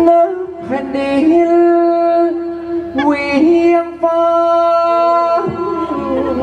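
Male likay singer performing through a headset microphone, holding long drawn-out notes joined by ornamented bends in slow Thai likay vocal style.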